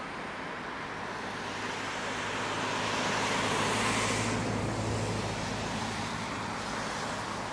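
A vehicle passes by: a steady rushing noise with a low hum that swells to its loudest about four seconds in and then falls away.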